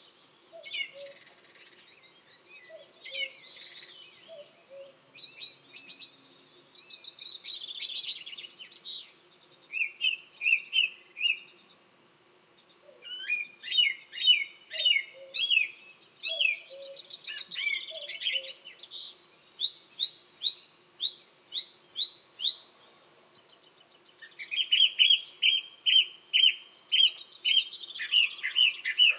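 Song thrush singing: short whistled phrases, each repeated several times in quick succession, in bouts with brief pauses between them. A cuckoo calls faintly in the background.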